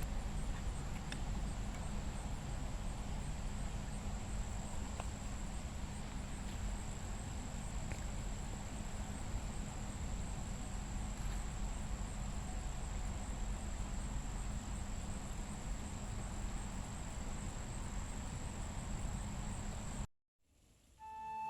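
Steady high-pitched insect chorus, typical of crickets, over a low outdoor rumble. It cuts off suddenly near the end.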